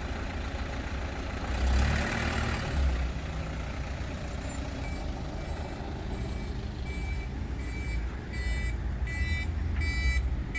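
A vehicle engine running steadily, with a brief rush of noise about two seconds in. From about halfway through, a reversing warning beeps, the short beeps coming faster and louder toward the end.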